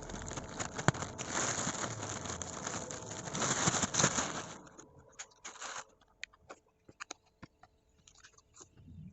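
Plastic packaging being handled and crinkled for about four and a half seconds, with sharp clicks, then a short rustle. After that come scattered light clicks and taps of small plastic cosmetic cases being handled.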